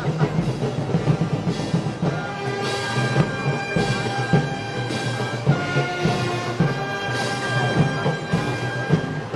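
Brass band playing festive march music, with drums beating under sustained brass notes.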